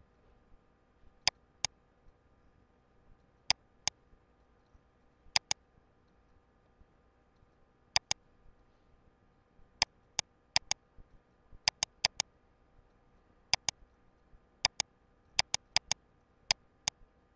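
Computer mouse buttons clicking, sharp and mostly in quick pairs, a dozen or more times at uneven intervals over a faint steady hum.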